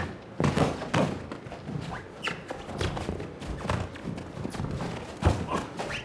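Boxing gloves landing punches on gloves and bodies, with boots shuffling on the ring canvas: a run of sharp thuds, loudest about half a second, one second and five seconds in.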